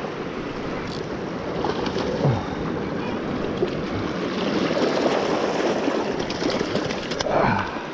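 Sea waves washing and surging over a rocky shore ledge as a steady rushing wash, with a brief louder surge near the end.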